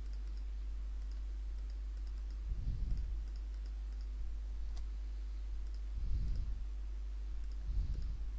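Computer mouse clicking in light, scattered clicks as clone-stamp strokes are applied, over a steady low electrical hum. A few soft low thumps come about three, six and eight seconds in.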